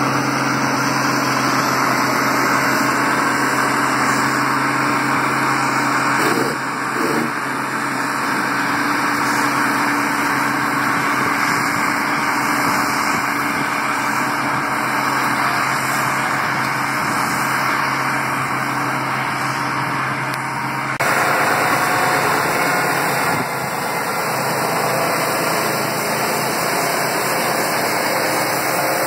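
Engines of heavy construction machinery running steadily, with a low, even hum. The sound changes abruptly twice, about six and twenty-one seconds in.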